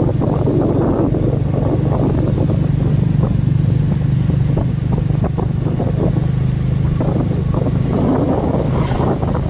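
Small motorcycle's engine running steadily at cruising speed as the bike rides along, with a constant low hum and gusty wind rushing over the microphone.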